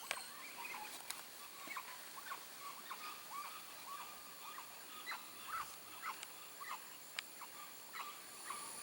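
Rainforest wildlife: faint, short chirping animal calls repeated two or three a second, over a steady high insect buzz, with a few sharp clicks.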